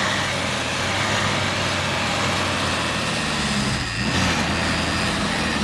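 Suzuki Samurai engine running hard under load while the 4x4 sits stuck in deep snow, its wheels spinning and digging in without moving the vehicle. The engine note shifts about four seconds in.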